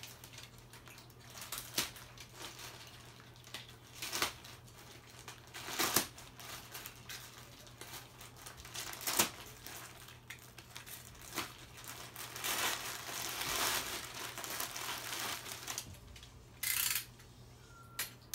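Plastic poly mailer crinkling and rustling as it is slit open with a utility knife, in irregular scrapes and crackles with a longer stretch of rustling and a short loud crinkle near the end. A steady low hum runs underneath.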